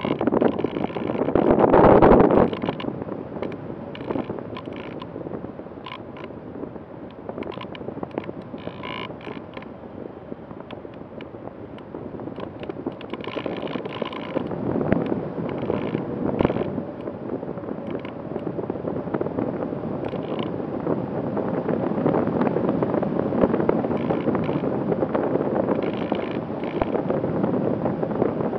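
Onboard sound of an Easy Star 2 foam RC plane in flight: wind rushing over the airframe, with many small clicks and creaks from the airframe and camera mount. There is a loud swell of wind about two seconds in.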